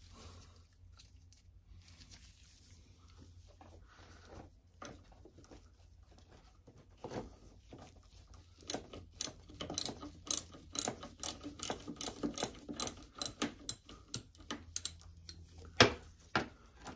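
Small hand ratchet clicking as it turns a bolt, a few scattered clicks at first and then a steady run of about three clicks a second for several seconds; one louder knock near the end.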